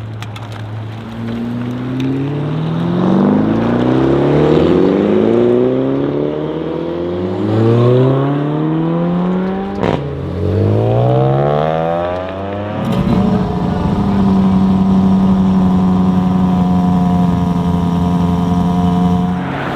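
ABT Audi RSQ8-R's 4.0-litre twin-turbo V8 accelerating hard, its revs climbing and dropping back several times as it shifts up through the gears, with a sharp pop about ten seconds in. It then holds a steady engine note at speed.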